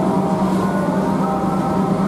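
Passenger train coaches rolling past along a station platform: a steady, even hum with a low rumble underneath.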